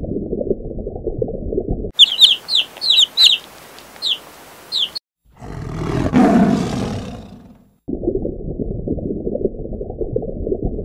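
A string of dubbed animal sounds: a muffled underwater rumble, then a run of quick, falling bird chirps, then one tiger roar that swells and fades about five to eight seconds in, then the muffled underwater rumble again.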